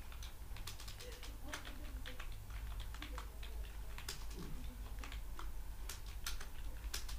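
Computer keyboard being typed on: quick, irregular key clicks, over a steady low hum.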